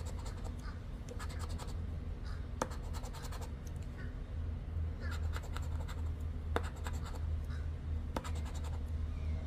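A poker chip scraping the coating off a paper lottery scratch-off ticket: several bursts of quick rasping strokes, one number spot at a time, over a steady low hum.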